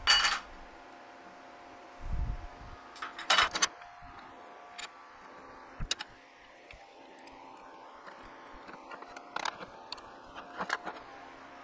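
Steel parts and hand tools clinking and clanking on a steel welding table, with a C-clamp being fitted near the end, plus a dull thump about two seconds in. A steady hum runs underneath.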